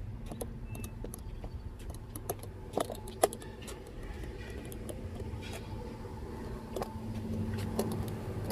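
A steady low hum, like a motor running, with scattered light clicks and crackles throughout and two sharper clicks about three seconds in.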